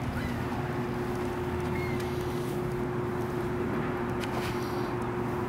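Outdoor ambience: wind rushing on the microphone over a steady low hum.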